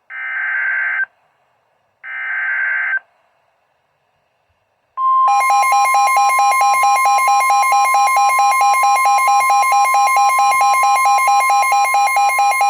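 Emergency Alert System alert tones: two short bursts of screeching digital header data, about a second each, then about five seconds in a loud attention signal starts, a steady tone near 1 kHz under a fast-pulsing buzz, running on without a break.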